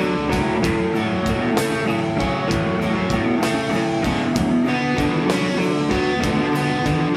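Rock band playing live: electric guitar and bass guitar chords sustained over a drum kit, with regular drum and cymbal hits.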